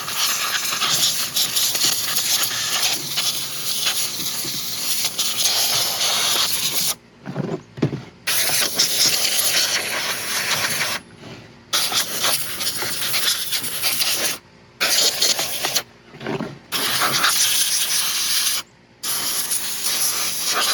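Compressed air hissing from an air-compressor blow gun in long blasts, blowing sawdust and debris out of a chainsaw to clean it; the blast stops briefly about five times.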